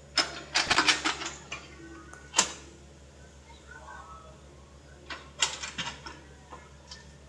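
Mini excavator's diesel engine running low and steady, with sharp knocks and clatters over it in two bunches, about a second in and again near five to six seconds.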